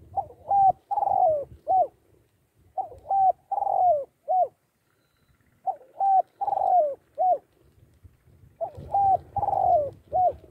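Spotted dove cooing: four repeated phrases of four or five coos each, about one every three seconds.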